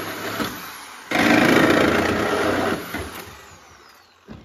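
Cordless reciprocating saw cutting into the rusted sheet-metal floor pan of a 1973 Plymouth Scamp. It winds down, then runs in a loud burst of about a second and a half, then slows and stops.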